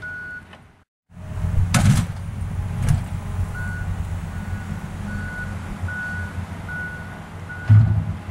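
An engine runs steadily with a low hum while a backup alarm beeps in short, evenly spaced tones about twice a second. The sound drops out briefly about a second in; there are a couple of knocks about two and three seconds in, and a loud thump near the end.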